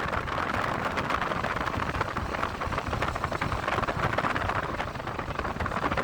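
Wind buffeting the microphone outdoors: a continuous, gusty rumbling noise.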